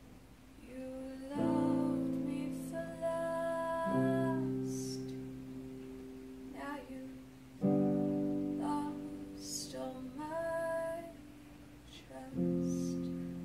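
Digital piano played slowly: four chords struck a few seconds apart, each left to ring and fade, with a few higher melody notes held over them.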